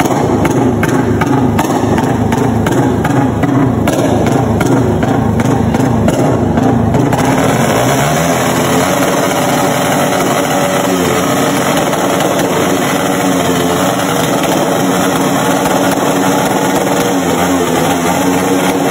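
A stationary underbone motorcycle with a loud open exhaust pipe, revved hard. For about the first seven seconds it pulses rapidly and evenly. After that it is held at high revs, with the pitch rising and falling.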